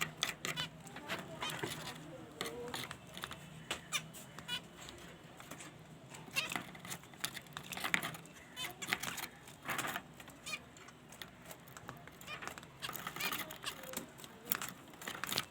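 Birds feeding: scattered short calls among many quick clicks and taps throughout.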